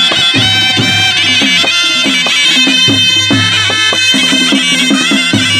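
Nepali panche baja ensemble playing: two sahanai, double-reed pipes with brass bells, carry a loud, steady melody together over regular strokes of a dholaki barrel drum.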